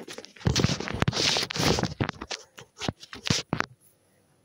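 Scraping and rubbing handling noise as the phone is picked up and moved, with irregular scratches and knocks; it stops about three and a half seconds in.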